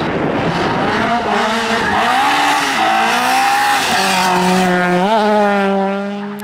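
Citroën C2 rally car's engine revving hard as it accelerates through a tyre chicane and passes close by. The pitch rises and dips with gear changes, holds a steady note, and falls away as the car pulls off near the end.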